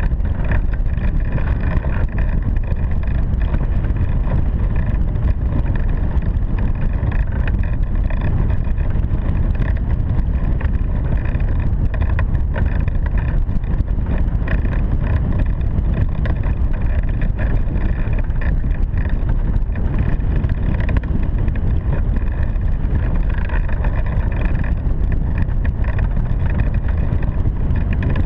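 Steady, loud rush of airflow across the microphone of a camera mounted on a hang glider's wing in flight, mostly low and rumbling, with no pauses.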